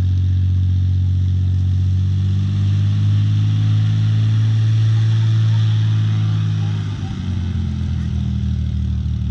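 Aermacchi AM.3C Bosbok's single piston engine, a six-cylinder supercharged Lycoming GSO-480, running steadily as the aircraft rolls out and taxis after landing. The engine note changes about seven seconds in as the power is adjusted.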